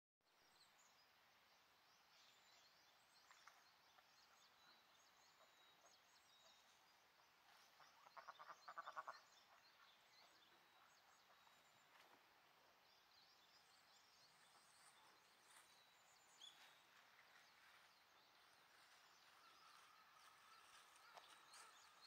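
Faint outdoor ambience of small birds chirping and trilling. About eight seconds in comes a brief run of rapid, lower pulsed calls, the loudest sound here.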